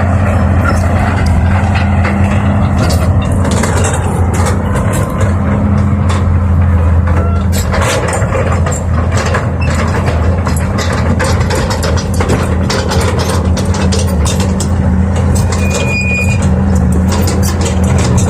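Heavy diesel engine running steadily, with many sharp knocks and rattles over it.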